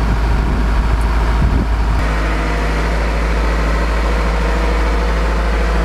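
Engine of a crawler-mounted geothermal borehole drilling rig running steadily, with a heavy low rumble.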